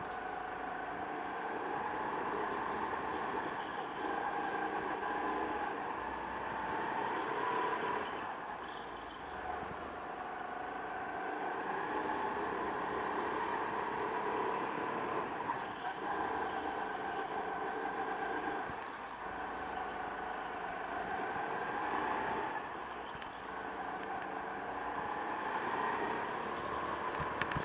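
Go-kart engine heard onboard, running hard with its pitch rising and falling as it speeds up and slows, dropping noticeably a few times for corners.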